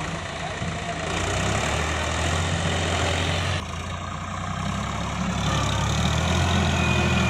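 Heavy diesel engine of earth-moving or farm machinery running steadily with a low, even hum. It gets louder about a second in, and the sound changes abruptly about halfway through.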